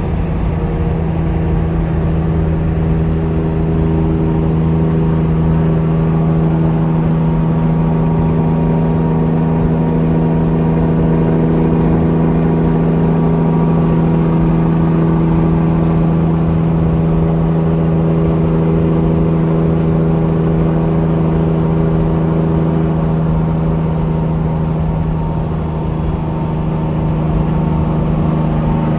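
Big-rig diesel engine running steadily at close range: a loud, even drone that holds one pitch throughout, with no revving.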